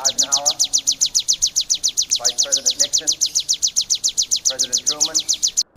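Ciblek (bar-winged prinia) singing a rapid, machine-even run of short, sharp high notes, about ten a second, the fast 'tembakan' style prized in contest birds. The run cuts out abruptly for a moment near the end.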